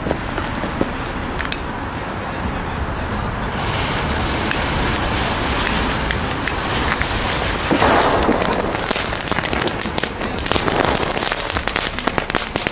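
Small coloured ground fireworks lit one after another and burning with a steady hiss and crackle, which starts about three and a half seconds in and grows louder.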